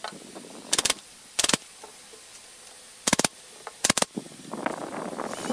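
Pneumatic nail gun firing four times, in two pairs about three-quarters of a second apart, driving nails into the brace joints of a wooden table frame. Each shot is a short, sharp crack.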